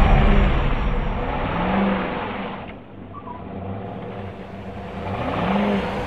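Chevrolet plow pickup's engine revving up and easing off twice as the truck tries to pull out of deep snow, with a loud rushing hiss that drops away about halfway through.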